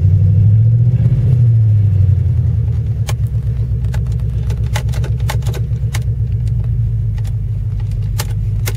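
Ford Crown Victoria V8 idling with no exhaust past the catalytic converters: a loud, pulsing low rumble that swells slightly in the first two seconds, then settles to a steady idle. A few sharp clicks sound over it.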